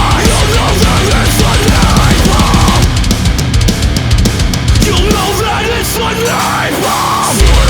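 Loud, aggressive heavy rock music with dense, fast drumming; the bass thins out for a couple of seconds and comes back hard near the end.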